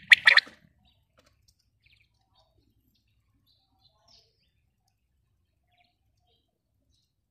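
Female quail calling: one short burst of rapid, sharp notes right at the start, then near silence.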